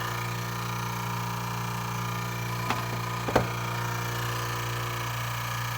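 Edwards RV3 two-stage rotary vane vacuum pump running with a steady hum. Two short sharp knocks come a little before and just after the middle.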